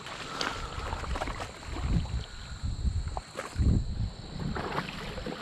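Shallow creek water sloshing and splashing as a salmon is let back into the water, with a few stronger splashes, about two, three and a half, and four and a half seconds in. Wind rumbles on the microphone.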